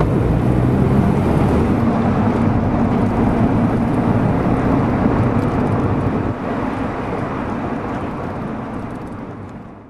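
Road and engine noise of a moving car heard from inside the cabin, a steady rushing hum, fading away over the last few seconds.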